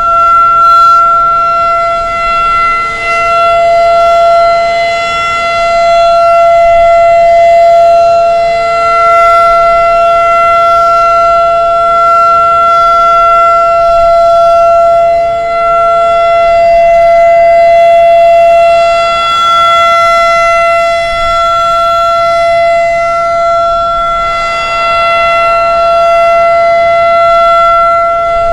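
Federal Signal 2001 outdoor warning siren sounding its full alert signal: one loud, steady wail that holds its pitch without rising or falling. The loudness swells and fades slowly every few seconds as the rotating siren head turns.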